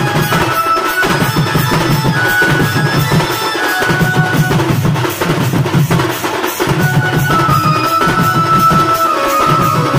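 Loud band music for dancing: drums beat a steady, driving rhythm under a high melody of held notes that step up and down.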